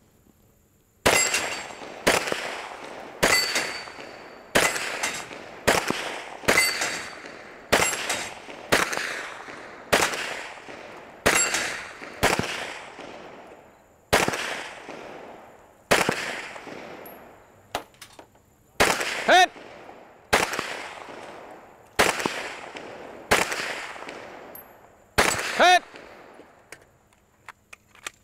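Competition gunfire at steel targets: about twenty shots, roughly one a second at first and more spaced out later, each followed by a long echo. A couple of hits ring on steel plates.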